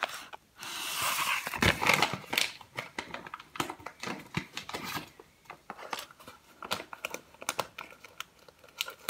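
Kraft-paper bag with a plastic window crinkling and rustling as it is handled and opened, densest in the first two seconds, then sparser crackles and clicks.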